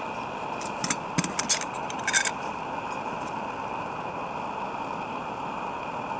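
Small camp stove hissing steadily under the pan, with a few light metallic clicks and clinks in the first two seconds or so.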